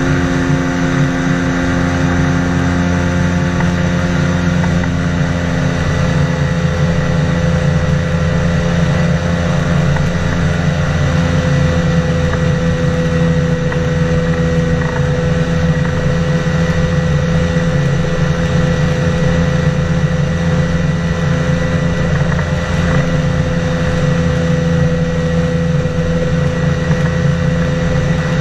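Engine and pusher propeller of a flying inflatable boat, a weight-shift microlight with an inflatable hull, running steadily in cruising flight: an even drone of several held tones.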